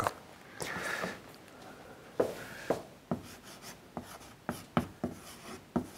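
Chalk writing on a blackboard: a string of short sharp taps and scrapes, starting about two seconds in, as characters and numbers are written.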